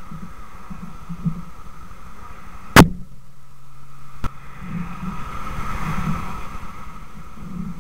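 A passenger car driving past close by, its tyre and engine noise swelling and fading about five to seven seconds in. Earlier, about three seconds in, comes a single sharp loud knock, the loudest sound here, followed by a smaller click a second and a half later.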